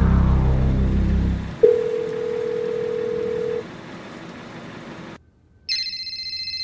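A loud low droning rumble cuts off about a second and a half in and gives way to a steady single-pitch telephone tone lasting about two seconds. After a moment of silence, an iPhone starts ringing with a high electronic ringtone near the end.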